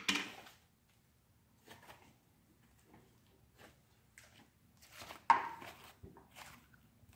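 Clear plastic slime tub handled and tipped out over a wooden table: a sharp knock at the start, a few light taps and clicks, then another sharp knock about five seconds in as the butter slime comes out.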